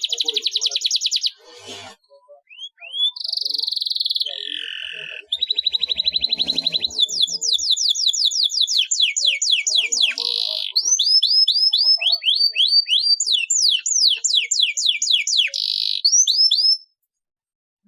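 Domestic canary singing a long song of rolling trills: fast runs of high repeated notes, some as rapid rattles and others as series of quick downward-sweeping whistles. There is a brief pause early on, and the song stops about a second before the end.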